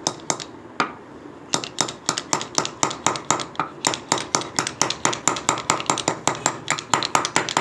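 Rapid light hammer taps on a small steel cover sleeve seated on a motorcycle front fork tube, each strike a sharp metallic clink, about four or five a second, with a short pause about a second in.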